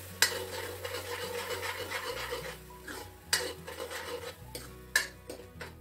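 Metal spoon stirring and scraping a thick masala paste in a steel kadai, with three sharp clinks of the spoon against the pan, the loudest just after the start.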